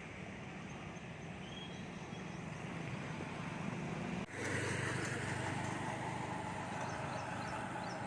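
Street ambience of steady road traffic, with a few faint bird chirps above it. About four seconds in the sound cuts abruptly to a louder stretch of the same traffic.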